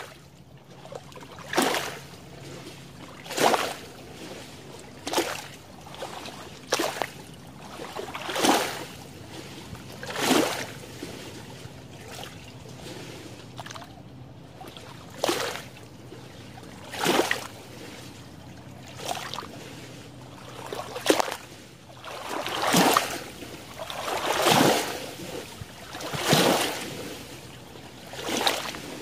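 Small lake waves lapping at the shore, a short soft wash about every two seconds, growing a little stronger near the end. A faint steady low hum runs underneath.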